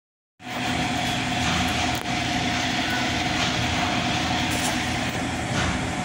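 An engine running steadily, with a constant whine, over loud outdoor street and crowd noise; the sound cuts in just after the start.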